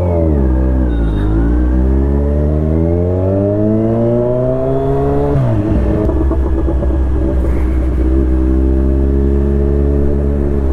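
Kawasaki Z1000's inline-four engine on a loud exhaust, pulling away under acceleration: the pitch dips briefly, then climbs steadily for about four seconds, drops sharply at an upshift about five seconds in, and then holds a steady lower note.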